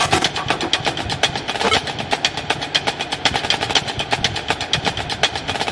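Background music with a rapid, busy percussion beat.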